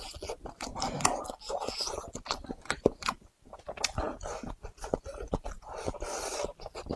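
Close-miked chewing and mouth sounds of someone eating a rice bowl of twice-cooked pork with dried tofu, with many short wet clicks and smacks.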